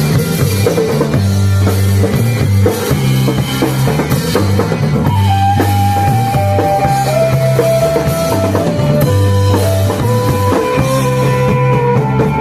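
Rock band playing an instrumental passage: driving drum kit and bass, with a sustained lead melody line coming in about five seconds in.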